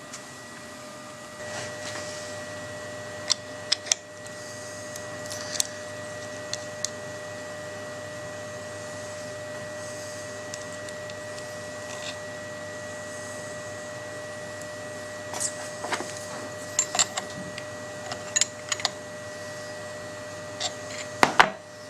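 Scattered small metallic clicks and clinks from handling the ER11 collet, collet nut and engraving bit, over a steady electrical hum with a faint high whine.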